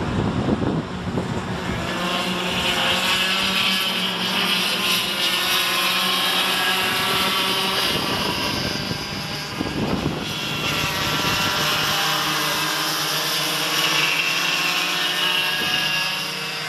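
Several Cadet 9 go-karts' small two-stroke engines buzzing at high revs as the pack races past, the overlapping engine notes rising and falling. Wind buffets the microphone briefly about a second in and again about ten seconds in.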